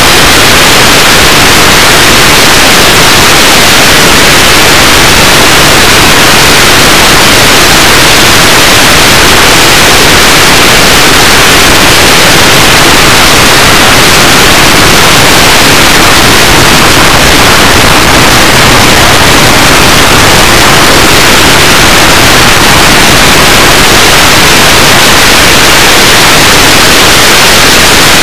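Loud, steady static hiss with no change in level or pitch: the empty audio channel of an analog FPV video link, recorded through the video goggles' receiver.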